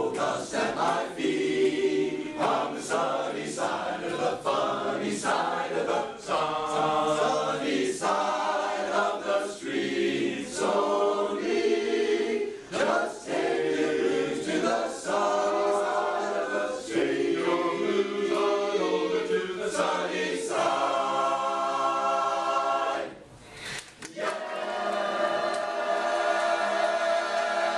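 Men's barbershop chorus singing a cappella in four-part harmony. About 23 seconds in the singing breaks off briefly, then comes back as a long held final chord that ends near the end.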